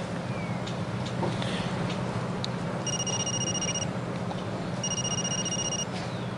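Electronic ringtone of an incoming call left unanswered: a high, steady double-pitched beep lasting about a second, sounding twice about two seconds apart, over a steady low hum.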